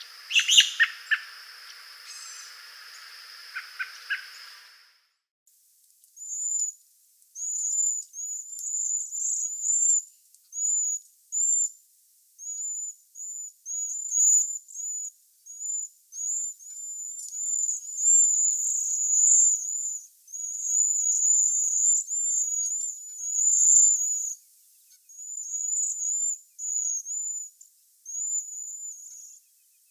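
Wild birds calling. First come a few short calls over a steady high tone and background hiss. After a brief gap, many very high, thin, lisping calls follow in quick series, several birds overlapping.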